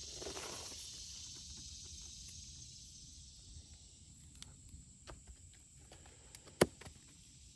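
Quiet outdoor ambience: a faint high hiss that fades over the first few seconds, a few soft ticks, and one sharp click about six and a half seconds in.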